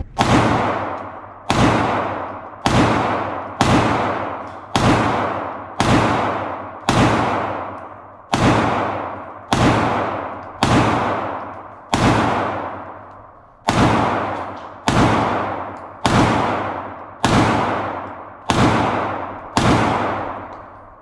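Handgun shots fired one at a time at a steady pace, about one a second, roughly eighteen in all with one longer pause a little past the middle. Each shot has a long echoing decay.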